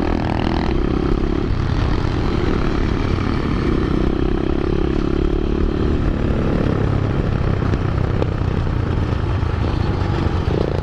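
A 125cc four-stroke single-cylinder pit bike engine running close up while riding, its pitch rising and falling with the throttle, with other pit bikes running just ahead.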